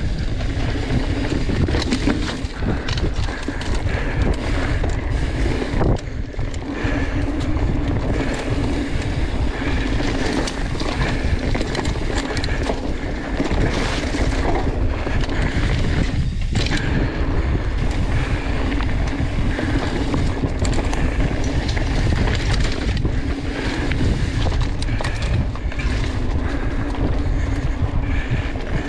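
Mountain bike rolling down a dirt forest trail, with wind rushing over the handlebar camera's microphone and tyre and frame rumble over the ground.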